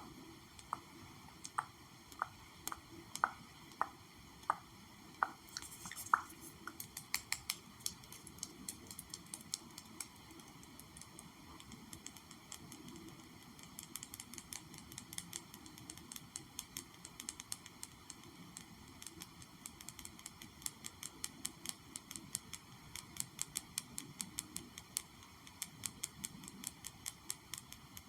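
ASMR tapping on an object: slow, separate taps for the first few seconds, then quicker, lighter tapping in irregular runs of crisp clicks.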